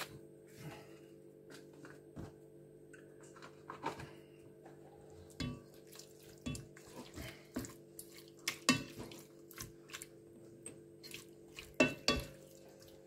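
Diced chicken being stirred in a pot with a silicone spoon: irregular soft knocks and scrapes against the pot, with two sharper knocks near the end, over a steady low hum.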